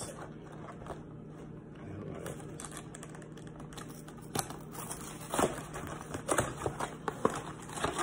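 A cardboard snack box being torn open at its end flap and a bar in a crinkly plastic wrapper pulled out. The first half holds only faint handling; from about halfway in come scattered sharp crackles and snaps.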